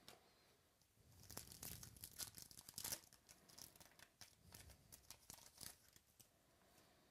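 A trading-card pack wrapper being torn open and crinkled, a quick run of crackly tearing for several seconds that tails off into lighter rustles.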